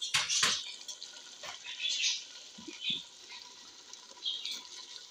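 Freshly added marinated fish pieces sizzling in hot masala gravy in a large aluminium pot, in short hissing spurts, the loudest right at the start.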